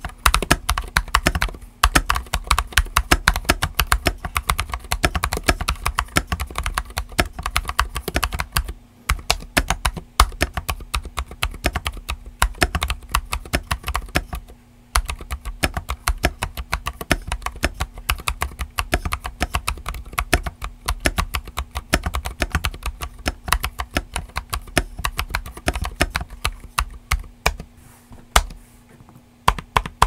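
Fast typing on a stock Keychron V7 70% mechanical keyboard with Gazzew U4Tx tactile switches on 65 g springs and PBT keycaps: a dense run of keystrokes, briefly interrupted about a third of the way in, at the halfway mark and just before the end.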